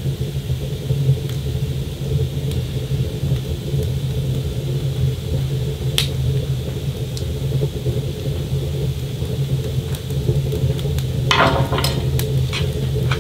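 Cooking at a small woodstove: a steady low rumble under a pan of vegetables frying. There is one sharp click about six seconds in, then a run of clicks and scrapes from a knife and utensils at the cutting board and pan near the end.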